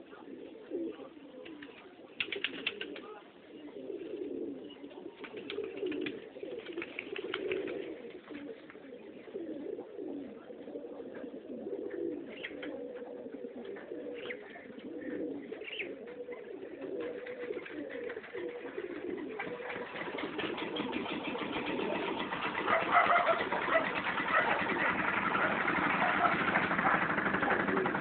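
Domestic pigeons cooing, one low warbling coo after another without a break. About two-thirds of the way in, a broad rushing noise swells and becomes the loudest sound by the end.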